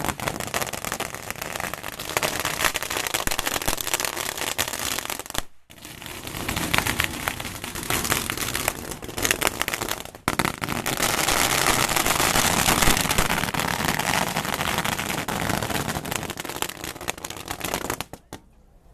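Strings of firecrackers going off in a rapid, dense crackle of bangs. It breaks off briefly twice and stops shortly before the end.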